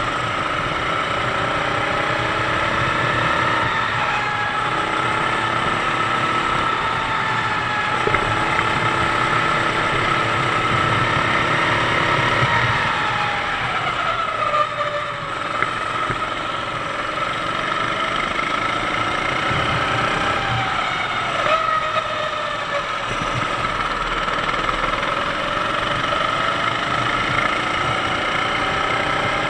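Sodi kart's 390cc four-stroke engine at racing speed, heard from on board, its pitch dropping and climbing again several times as the throttle comes off and back on through the corners.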